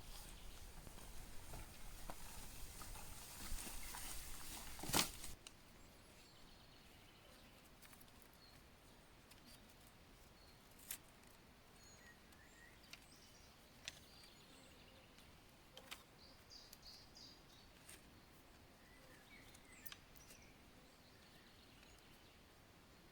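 Rustling and knocking with one sharp crack, cutting off abruptly about five seconds in. After that comes a quiet forest background with faint, scattered bird chirps and a few isolated sharp clicks.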